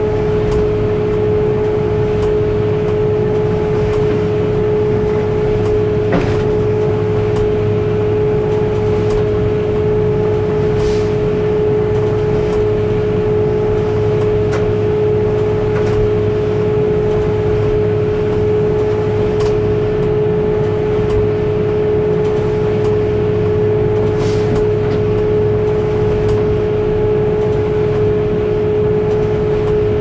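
Concrete mixer truck's engine held at raised revs on cruise, turning the drum to mix in water for slump: a loud, steady drone with a strong whine. A few faint knocks sound now and then.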